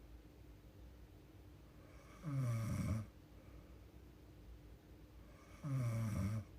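A young woman snoring in her sleep: two snores about three and a half seconds apart, each lasting under a second, with a quiet breath-length gap between them.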